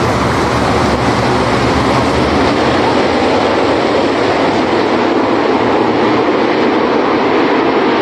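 A pack of dirt late model race cars running flat out around the dirt oval, their V8 engines making a loud, steady, dense noise, with the deepest rumble easing a few seconds in.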